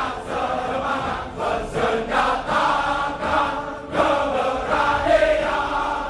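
Background music of a group of voices singing or chanting together.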